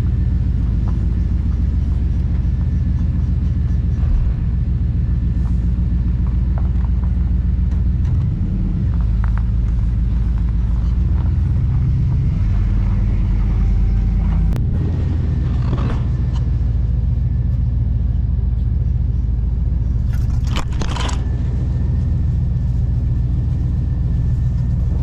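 Chevy 350 small-block V8 idling steadily just after being started, its low rumble shifting a few times.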